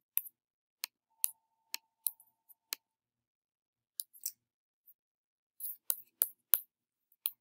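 A run of sharp, irregular computer mouse clicks, some in quick pairs, with short pauses between runs.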